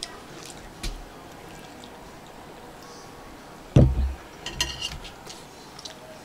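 Tableware handled on a table: a heavy knock as something is set down a little before four seconds in, followed by a few short ringing clinks of a metal butter knife.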